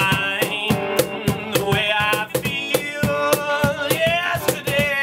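A man singing a bluesy song, with vibrato on held notes, over electric guitar and a steady drum beat.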